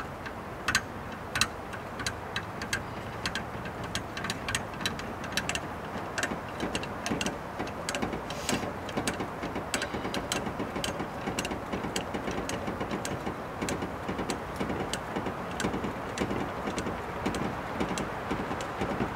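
Lug wrench clinking and clicking on the wheel nuts of a VW bus as the wheel is refitted and the nuts are run on: irregular sharp metal clicks, several a second in clusters, over a steady background rush.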